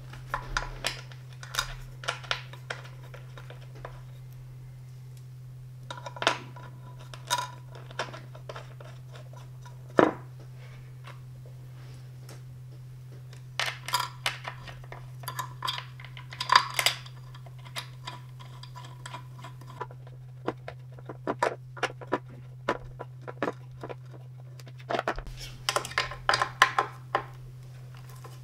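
Screws and washers being fitted by hand into the metal tilt mechanism under an office chair seat: scattered small metallic clicks and clinks in clusters, with quieter pauses between, over a steady low hum.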